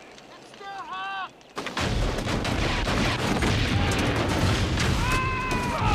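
Loud, dense cracking and rumbling blasts, like artillery or heavy gunfire, set in suddenly about a second and a half in and keep going. A few high wavering calls or whistles rise and fall, once before the blasts and again near the end.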